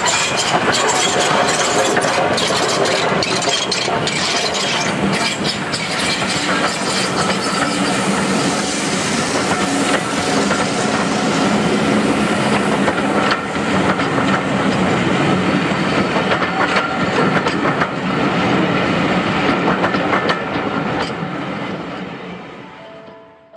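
Maunsell S15 4-6-0 steam locomotive No. 825 passing close by with a train of coaches, then the coaches' wheels clicking over the rail joints as they roll past. The sound fades away near the end as the train draws off.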